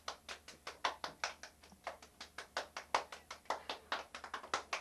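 A few people clapping: quick, uneven hand claps, about seven a second.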